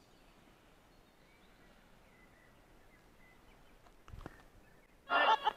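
Quiet outdoor background with faint bird calls and a brief knock about four seconds in. Near the end comes a short, loud burst of garbled electronic voice from a spirit box app.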